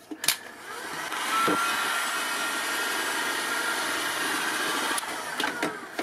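Electric heat gun running: its fan spins up over about a second, then blows steadily with a faint whine while it shrinks black heat-shrink tubing over a crimped cable lug. It cuts off about five seconds in.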